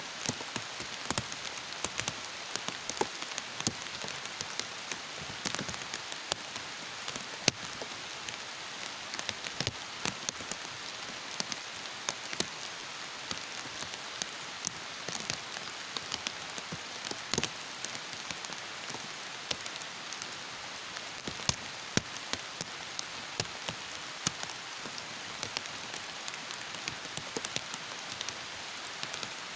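Heavy tropical rain falling steadily, with many sharp drops tapping irregularly on a surface close by.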